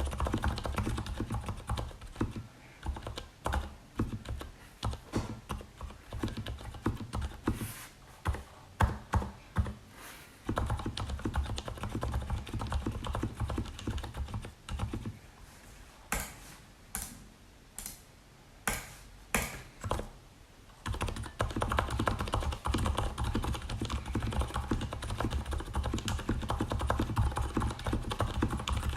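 Typing on a Leopold FC750RPD tenkeyless keyboard with lubed Cherry MX Silent Red switches: soft, muted, bassy keystrokes. Fast typing at first slows to scattered single presses, with a handful of sharper separate clicks about two-thirds of the way through, then quick continuous typing again near the end.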